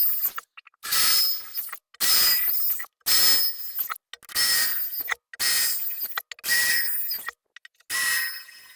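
Drill bit boring into steel in short, regular pulses, about one a second, each pulse carrying a high squeal of the bit cutting metal.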